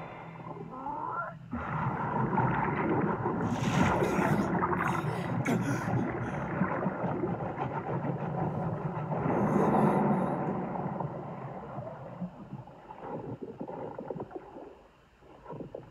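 Animated film's underwater sound effects: muffled churning, rushing water as a heron's bill spears a large fish and hauls it upward, with sharp splashes about four to six seconds in. It fades down near the end.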